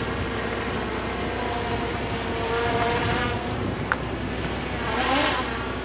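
Steady low hum of a cruise ship under way, with a sharp click about four seconds in and a short pitched sound near the end.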